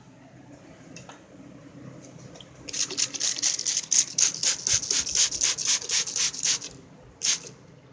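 A fast run of scratchy rubbing strokes, about four a second for about four seconds, then one more stroke near the end.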